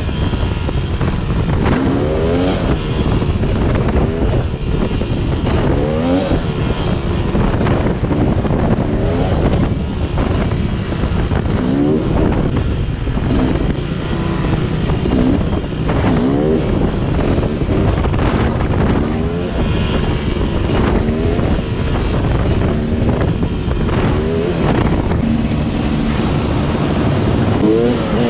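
Yamaha YZ250 two-stroke dirt bike engine under way, revving up again and again in rising sweeps as the rider accelerates and shifts. Heavy wind rush on the helmet-mounted camera runs under it.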